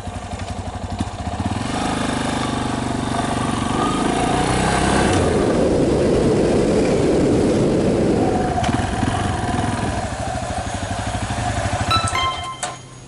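Yamaha Serow 250's single-cylinder four-stroke engine running as the bike is ridden, getting louder toward the middle and easing off after about eight seconds. A few clicks come near the end.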